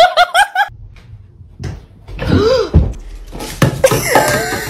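A few knocks and clatters of a plastic bottle being pushed across a wooden floor by a small dog, with short vocal sounds between them.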